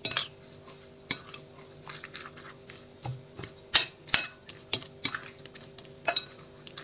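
A fork clicking and scraping against a bowl in quick irregular taps as cabbage pieces are stirred into egg whites.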